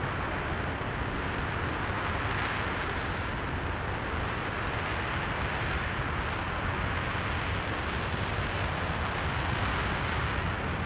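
RS-25 liquid-hydrogen/liquid-oxygen rocket engine firing on a test stand in a static hot-fire test: a steady, even hiss over a deep rumble, with no pitch and no breaks.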